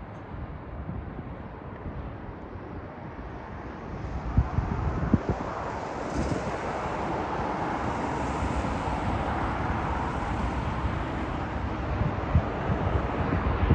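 Jet airliner on final approach to land, its engine rumble and rush building louder about four seconds in and staying strong, with gusty wind buffeting the microphone in low thumps.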